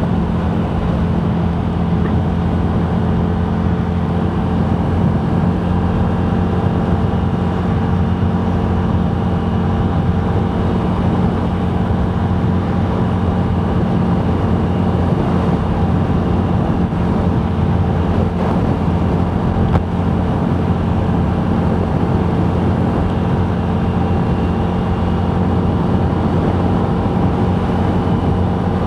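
Steady engine and road drone heard inside a moving vehicle's cabin, a constant low hum with one brief click about twenty seconds in.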